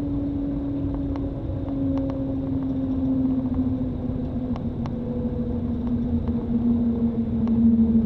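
Shanghai Maglev train heard from inside the cabin: a steady whine over a low rumble, its pitch slowly falling as the train slows on its approach to the station. A few faint ticks are heard.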